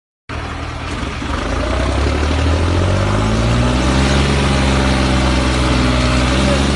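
New Holland tractor diesel engines working hard under load while pulling a stuck tractor free, with wheels spinning in the dirt. The engine note rises in pitch over the first few seconds, then holds steady.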